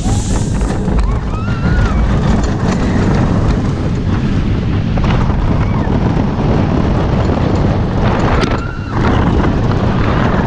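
Wind buffeting the microphone and the rumble of the Cheetah Hunt steel roller coaster train running fast along its track, with riders' voices shouting out now and then. The noise dips briefly about eight and a half seconds in.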